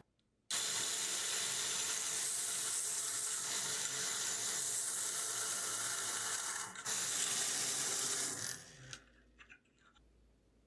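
Homemade DC-motor belt sander grinding the end of a steel bolt held against its running abrasive belt: a steady, hissing grind that starts just after the beginning, breaks off once briefly, and dies away about two seconds before the end.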